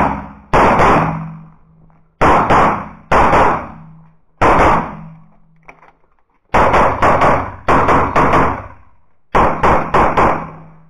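CZ 75 Shadow pistol fired in quick pairs of shots, several strings of double taps separated by short pauses, each shot ringing out briefly.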